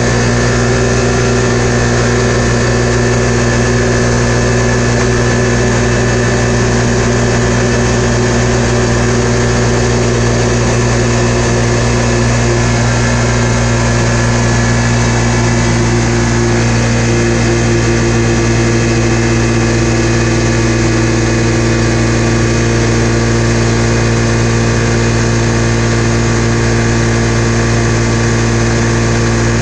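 Polaris RZR 570's single-cylinder engine running steadily at high revs, held near 7,000 rpm by its Dalton-tuned CVT clutch while cruising in high range. The engine note drops slightly about halfway through.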